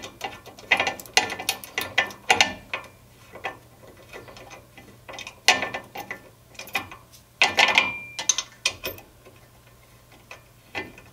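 Socket ratchet clicking in two runs of rapid clicks with a pause between, then a few single clicks near the end, as it drives the 13 mm hex-head screw that holds a drum-brake wheel cylinder to the backing plate.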